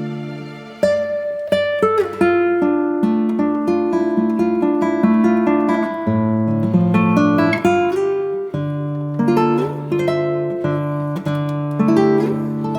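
Background music: acoustic guitar playing plucked and strummed chords, with a fresh run of notes beginning about a second in.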